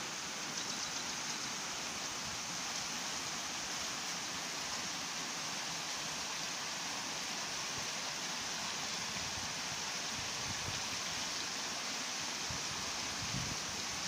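Shallow stream running steadily over rocks and small riffles: an even rush of water. A few low bumps come near the end.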